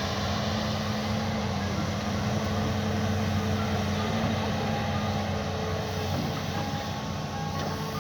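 Mini excavator's engine running steadily with a constant drone.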